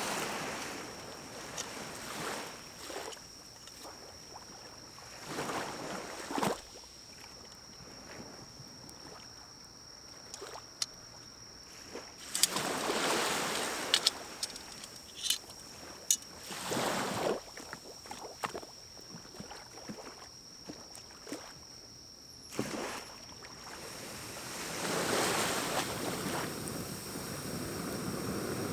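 Pine cones burning in a small wood-burning stove, crackling with scattered sharp pops, and several whooshing surges of noise. Near the end a longer rush of air comes as a pocket bellows blows into the fire to fan it.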